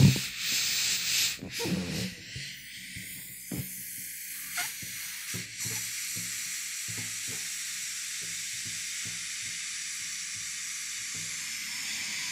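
Steady hiss of air escaping from a rubber balloon, with a few short knocks in the first half.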